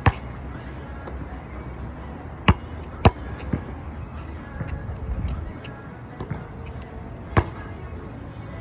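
A basketball bouncing on a hard court: separate sharp bounces, one right at the start, two close together about two and a half to three seconds in, and one more near the end.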